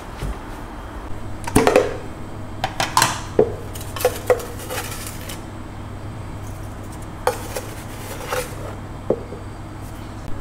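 Irregular clinks and knocks of kitchenware: a wooden spoon and a glass jug tapping against each other and a ceramic bowl as a powder is scooped and stirred. The taps are busiest in the first half, with a few more further on.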